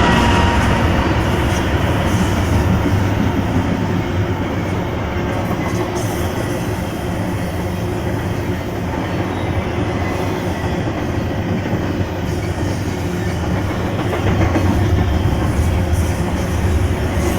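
Freight train rolling past at close range: a steady, loud rumble of wheels on rail and rail cars, with some clacking over the joints.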